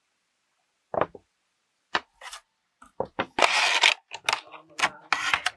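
Small hard objects being handled on a table: a series of separate knocks and clicks starting about a second in, with a short clattering rattle a little past the middle that is the loudest part.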